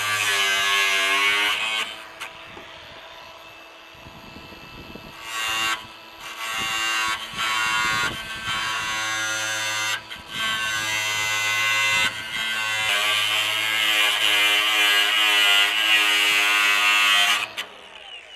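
A handheld electric power tool's motor whining in repeated runs, starting and stopping several times, with its pitch wavering as it loads up. The longest run comes near the end.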